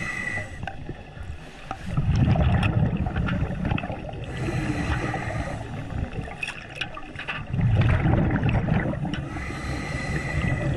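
Scuba diver breathing through a regulator underwater: two long swells of low, gurgling exhaled bubbles about six seconds apart, with a thinner hissing inhale between them.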